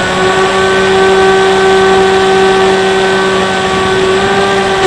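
Bixler 3 RC plane's electric motor and pusher propeller running steadily in flight, a steady pitched whine heard through the onboard camera.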